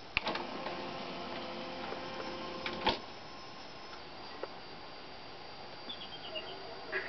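Sanyo Betacord Beta VCR: the play button clicks, then the tape-loading mechanism runs with a steady motor whine for nearly three seconds and stops with a clunk. Near the end, faint bird chirps from the cartoon's soundtrack begin through the TV speaker.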